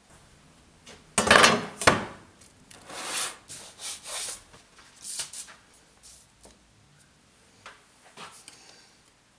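Handling noises on a workbench: a sheet of brass and paper being slid and set down, heard as a string of rubs and knocks. The loudest comes about a second and a half in, and smaller ones follow.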